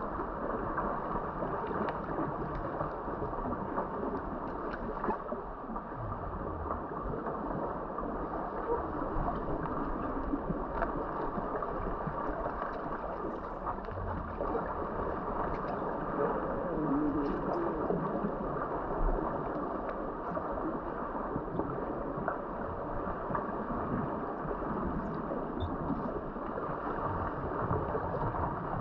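Water noise heard from a camera submerged in a pool during an underwater rugby game: a steady, muffled rush of water and bubbling from the swimmers' movement, with scattered faint clicks and knocks.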